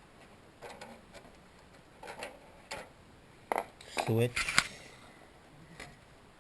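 Scattered metallic clinks and taps of hand tools and small metal parts being handled while the welder's cover and screws are off.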